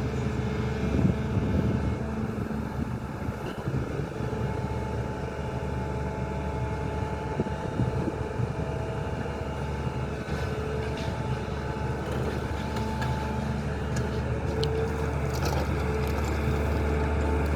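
SANY excavator's diesel engine running steadily under work, with a few light knocks.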